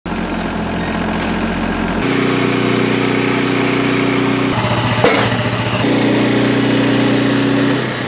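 Engines running in a series of short cuts: a compact diesel tractor's engine for the first two seconds, then a portable band sawmill's engine running steadily, with a sharp click about five seconds in.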